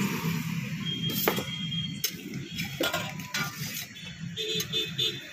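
A few sharp metallic clinks and knocks of a steel pizza peel and an aluminium serving plate being handled, over a steady background hum of street noise.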